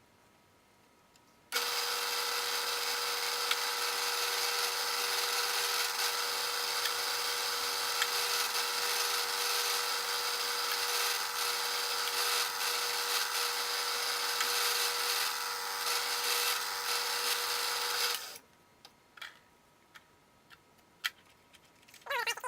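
Bridgeport milling machine running with a steady whine while drilling a hole in a small clamp plate. It starts abruptly about a second and a half in and stops sharply a few seconds before the end, leaving a few light clicks.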